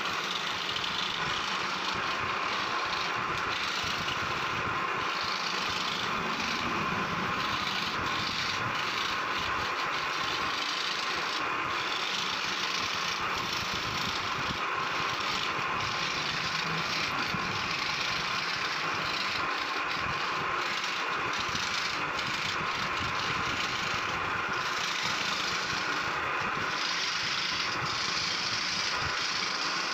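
Electric scroll saw running steadily, its thin blade cutting through a carved wooden plate.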